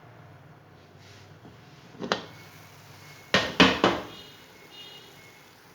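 Metal cookware clattering: one sharp knock about two seconds in, then three loud knocks in quick succession about a second and a half later, as pots and utensils are handled.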